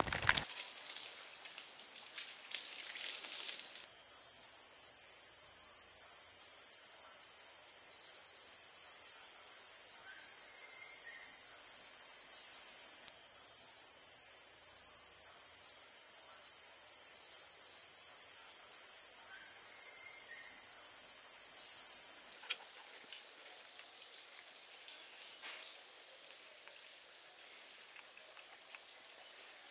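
Insects droning steadily with an unbroken high-pitched tone. The drone gets louder about four seconds in and drops back sharply about 22 seconds in.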